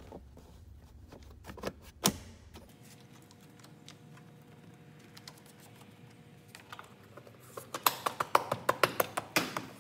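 Plastic interior trim panels of a Ford F-150 being pressed back into place, their clips clicking and snapping: one sharp snap about two seconds in, then a quick run of clicks and taps near the end as the door sill scuff plate is pushed down.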